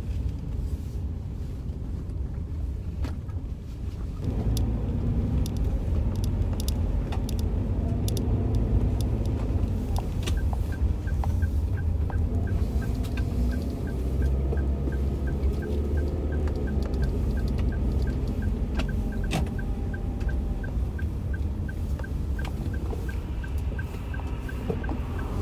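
Car cabin while driving: a steady low engine and road rumble that grows louder about four seconds in. A light, regular ticking comes in about ten seconds in and runs until near the end.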